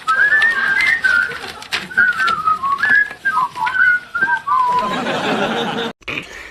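Whistling: a wavering string of short, gliding notes, followed near the end by a brief rush of noise that cuts off suddenly.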